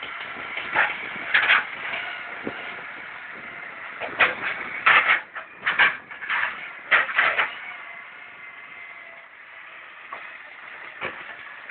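Tracked logging skidder's diesel engine running, with a series of short, loud metallic squeaks and clanks from the machine.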